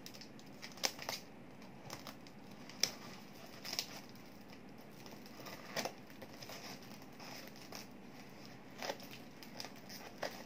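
Plastic shrink wrap on a cardboard box being cut with scissors, crinkling and snipping in scattered sharp crackles a second or two apart.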